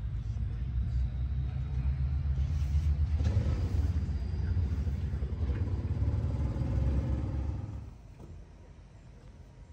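Detroit Diesel 8V71 two-stroke V8 diesel idling with a steady deep rumble, which stops abruptly about eight seconds in.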